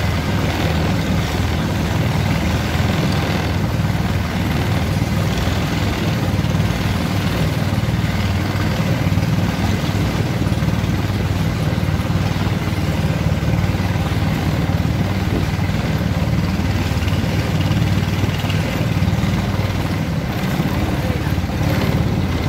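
Wooden boat's engine running steadily under way, a loud, even, low-pitched drone that does not change speed.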